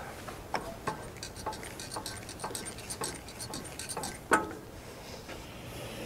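Footsteps on sandy ground at a walking pace, about two steps a second, then a single sharp knock about four seconds in as a hand meets the sawmill's metal head.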